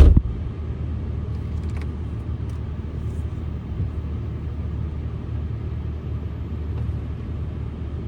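Volkswagen Jetta 2.5 L engine running steadily at idle just after starting, with its newly replaced high-pressure fuel pump and re-secured ignition-coil wiring, as a steady low rumble. A sharp thump comes at the very start.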